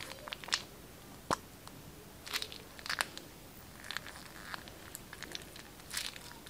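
Irregular crinkles, crackles and sharp clicks from a plastic piping bag being squeezed, as clear slime with small beads is pushed out of it; the sharpest click comes about a second in.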